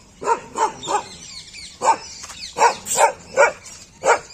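Street dogs barking: a quick run of three short barks, a pause of about a second, then about five more barks.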